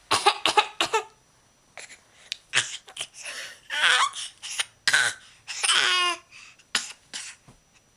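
A baby laughing and babbling in short high-pitched bursts, with a quick run of laughs about a second long at the start.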